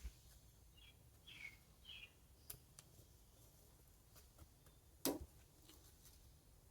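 Faint bird chirping: three short falling chirps about a second in, over quiet room tone. A single sharp click about five seconds in.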